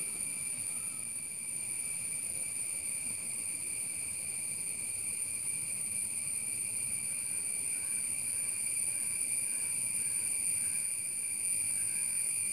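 Steady, unbroken high-pitched insect trill, like crickets. From about halfway, faint short lower notes repeat roughly twice a second.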